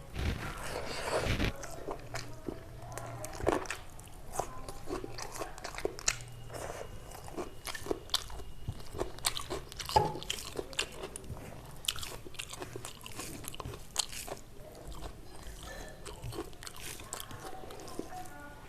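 A person eating with the microphone close to the mouth: chewing with repeated crunchy bites and wet mouth clicks, over a meal of rice, thin chicken curry and raw cucumber and onion salad. The crunching is loudest in the first second or so.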